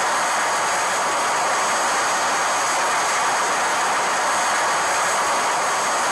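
Steady jet-like rushing noise, a film sound effect for the Showa-era MechaGodzilla, running unchanged with faint high steady tones over it.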